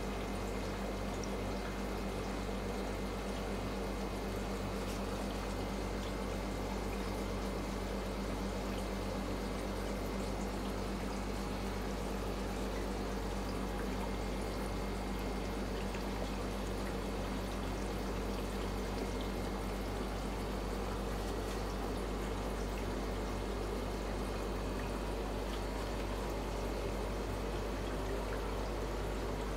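Steady trickling and bubbling of water in aquarium tanks, with a steady low hum underneath.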